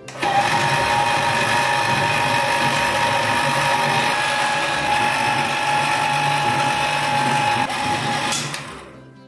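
Electric meat grinder's motor running, turning a rod that winds steel wire into a coil spring. It starts abruptly, runs steadily with a constant whine, then cuts out a little under eight seconds in and runs down over about a second.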